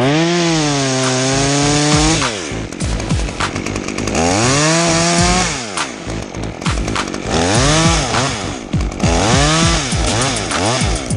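Chainsaw revved to full throttle four times, each burst held for one to two seconds and dropping back between cuts.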